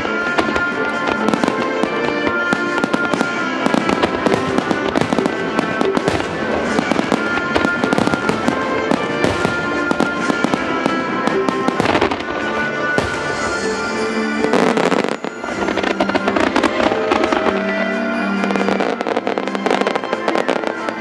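A fireworks display, with aerial shells bursting and crackling in rapid succession over music that accompanies the show. There is a short lull about 15 seconds in.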